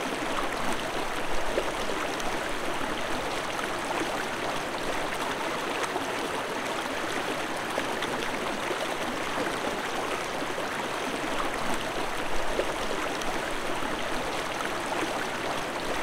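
Flowing creek water: a steady, even rushing.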